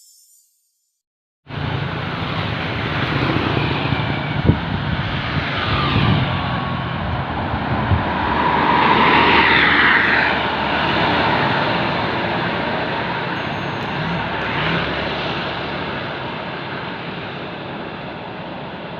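Road traffic noise with a vehicle engine passing by. It starts suddenly about a second and a half in and is loudest around nine to ten seconds in.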